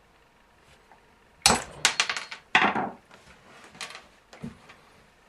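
Flat screwdriver prying the retaining C-clip off a Stihl MS260C chainsaw's clutch drum. It makes a quick run of sharp metal clicks and clatter about a second and a half in, then a short scrape, and a couple of faint clicks later.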